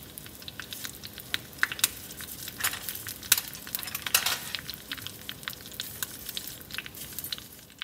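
Cashews, curry leaves and cumin seeds frying in hot gingelly (sesame) oil in a small pan. The oil sizzles steadily with frequent sharp pops and crackles, the loudest between about two and four seconds in.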